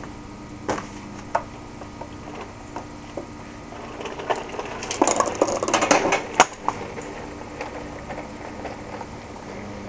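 Hand tools clicking, scraping and clinking against the metal parts of a small riding-mower engine during disassembly. A few single clicks come early, then a busier stretch of scraping and rattling about five seconds in, ending in a sharp click.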